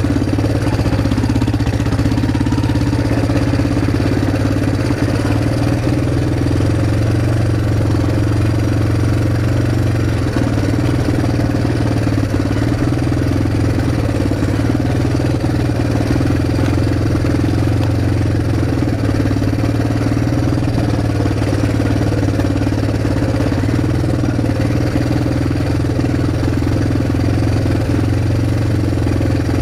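ATV engine running steadily, with an even drone that barely changes in pitch or loudness.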